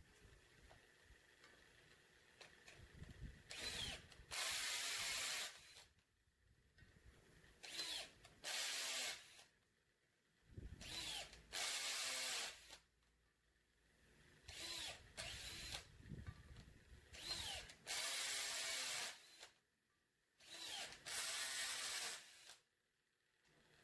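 Cordless drill run in six short bursts, each spinning up and winding down, with its bit working in a valve-guide bore of an aluminium Mitsubishi 4G93 cylinder head.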